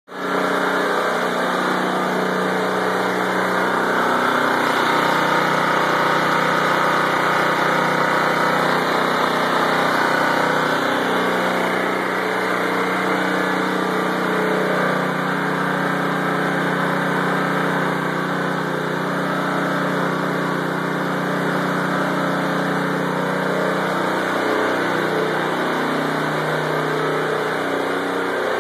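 Homemade lawnmower generator running steadily: a Predator 173cc 6 hp vertical-shaft engine driving a 120 A alternator, its pitch shifting slightly now and then.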